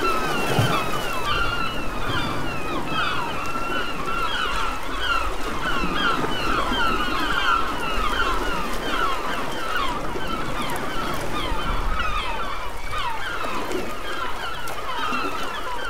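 A flock of gulls calling continuously, many short downward calls overlapping, over a steady wash of sea water.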